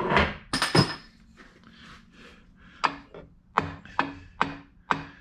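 A hammer lightly tapping a Muncie 4-speed transmission case to nudge it round on the angle plate: after a couple of handling knocks at the start, five sharp taps about half a second apart, each with a short metallic ring.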